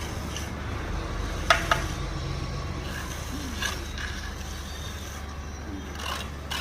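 An engine running steadily, with sharp metallic clanks and scrapes on top, the loudest a pair of knocks about a second and a half in, and a few lighter ones later.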